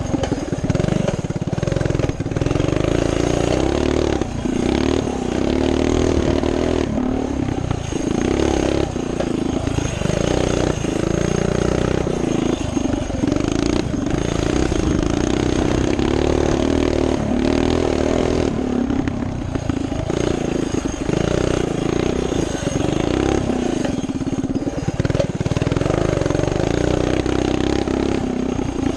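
Coleman CT200U mini bike's small single-cylinder engine running under load while riding, its pitch rising and falling with the throttle and easing off briefly every few seconds.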